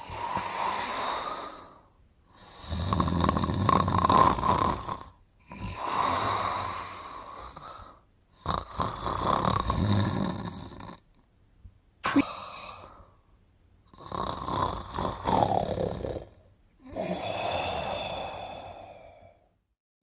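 A man snoring in his sleep: about seven snores, one on each breath, each lasting around two seconds with short quiet gaps between.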